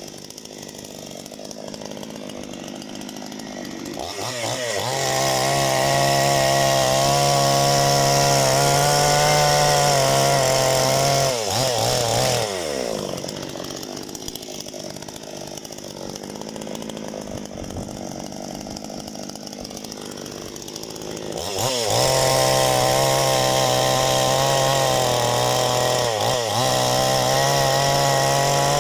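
Parma BP-058 two-stroke chainsaw with a new Oregon chain idling, then run at full throttle twice for about seven seconds each, cutting firewood, dropping back to idle between the cuts.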